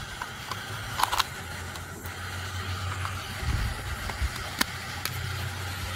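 A few sharp plastic and metal clicks as a folded canister stove is packed and snapped into its hard plastic case: a pair about a second in and one more near the four-and-a-half-second mark. Under them runs a steady low rumble.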